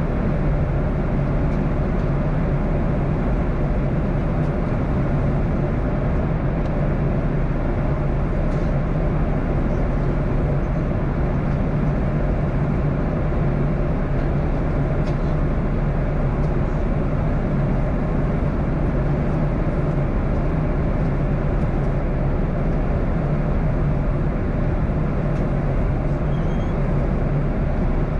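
Cabin noise of a Boeing 737-800 in flight, from a window seat beside the CFM56-7B engine: a steady rush of air and engine drone with a low hum underneath, unchanging throughout, as the jet descends.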